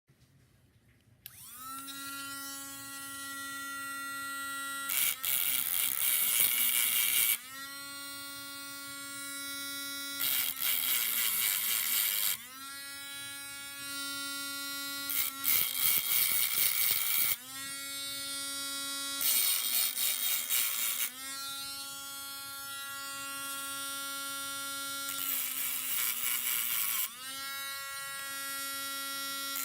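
Small electric motor tool running in repeated cycles: a steady whine that rises in pitch as it spins up, then a louder harsh rasping stretch of about two seconds, five times over.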